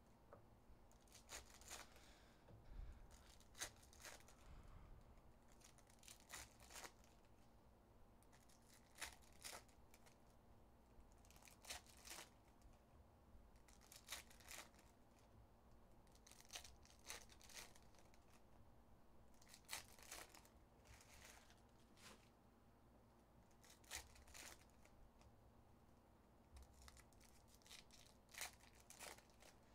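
Foil trading-card pack wrappers being torn open and crinkled by hand, in short quiet bursts every couple of seconds.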